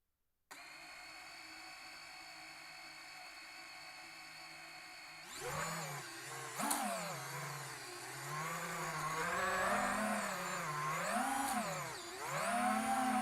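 Brushless motors of an FPV drone start about half a second in with a steady whine at low throttle. From about five seconds in the pitch swings up and down with throttle, then holds a higher steady whine near the end. The motor is being run to diagnose a suspected fault.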